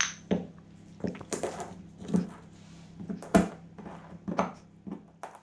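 Stone pestle grinding peppercorns and spice seeds in a stone mortar: irregular crunching scrapes and sharp knocks of stone on stone, about a dozen strokes.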